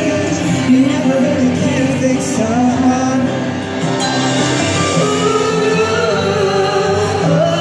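Music with a singing voice holding long notes that slide between pitches over a steady accompaniment.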